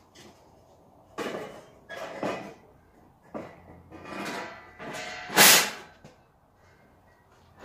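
Several metallic clanks and scrapes of metal parts and tools being worked at an MTZ tractor's wheel hub, with the loudest, ringing clank about five and a half seconds in.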